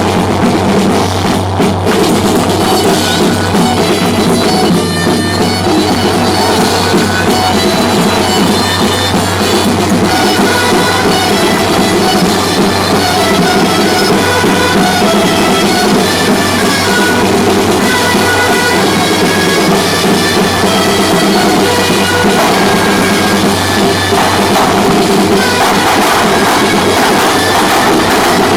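Music with drums and a high melody of short notes, running steadily.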